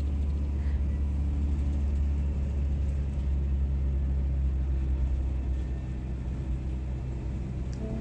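A bus's engine and road noise heard from inside the cabin while it drives along: a steady low rumble with a hum of engine tones, easing slightly near the end.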